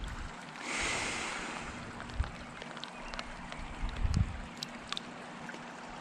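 Water splashing and trickling at the water's edge as a trout is released by hand, with a hiss of disturbed water about a second in and a few small clicks and a dull thump later.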